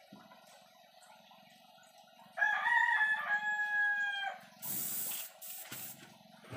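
A rooster crows once, a single long call starting a little over two seconds in. Near the end come three short hisses of air from an airbrush.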